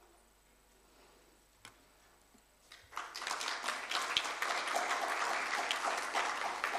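Audience applauding, starting about three seconds in after a near-quiet stretch with a few faint clicks.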